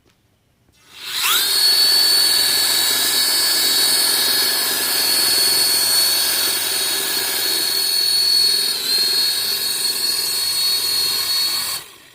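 Small electric motors of a homemade toy helicopter drone spinning up their propellers with a quickly rising whine, then running at a steady high-pitched whine with a brief dip about eight seconds in, and stopping suddenly near the end.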